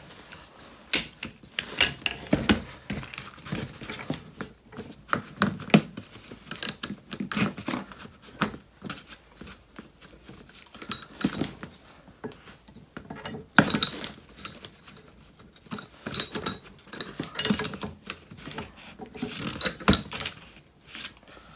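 Irregular clicks, clinks and knocks of hand work with metal parts on a wooden workbench: quick-grip bar clamps being taken off, and a steel jig plate, screws and a jubilee clip being handled around an anti-roll bar.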